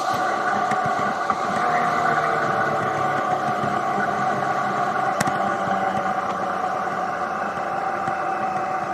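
Triumph Tiger 800 XRT motorcycle's three-cylinder engine running steadily at cruising speed. A faint sharp tick comes about five seconds in.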